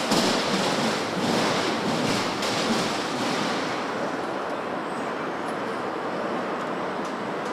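Steady rushing noise of car production-line machinery running, with a few faint light knocks near the start.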